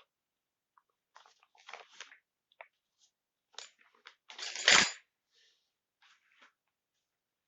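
Packaging handled during an unboxing: intermittent crinkling and rustling, with a louder crackle and a dull thump about four and a half seconds in.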